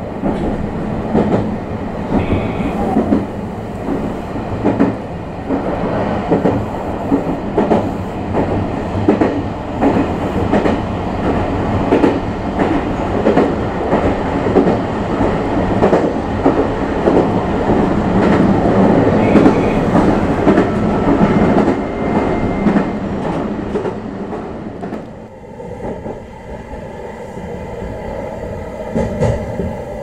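Meitetsu 3500-series electric train running, with a loud, dense, irregular clattering and knocking over the running noise that eases off about 25 seconds in to a quieter rumble. The clatter is an unexplained abnormal noise, one that a normal train of this kind doesn't make.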